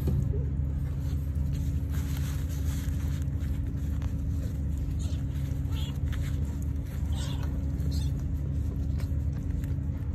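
A steady low hum, with light rustling and handling sounds as a hand moves over newborn kittens on a quilted pad, and a few brief faint high squeaks in the second half.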